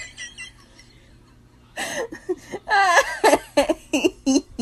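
A woman laughing hard in short bursts. After a quiet second or so, the laughter starts up again about two seconds in.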